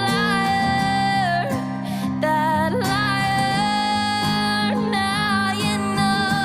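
A song with guitar accompaniment and a voice singing long held notes.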